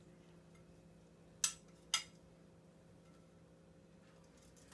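Two light clinks of a serving utensil against dishware, about half a second apart, as roasted asparagus is set on a plate, over a faint steady hum.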